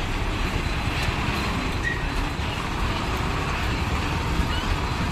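Heavy Tata truck's diesel engine running as the truck creeps slowly past close by in stop-and-go traffic, a steady low rumble.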